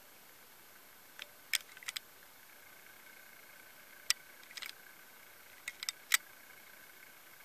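A few short, sharp clicks and taps in three small clusters over a faint steady background hiss.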